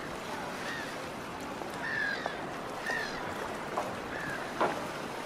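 Birds giving short arched calls, about one a second, over a steady wash like water at a harbour, with a sharp knock about four and a half seconds in.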